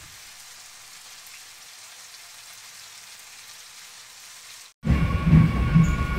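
Chicken pieces with onion and tomato sizzling in a hot wok: a steady frying hiss. It cuts off abruptly almost five seconds in, and louder music with a heavy beat starts.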